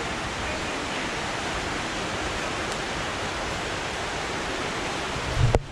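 Steady rush of a waterfall. Near the end a brief low thump hits the microphone and the sound cuts off abruptly.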